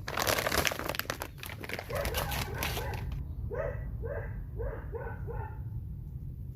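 Rustling, crinkling handling noise for about three seconds, then a dog barks five times in quick succession, about two barks a second.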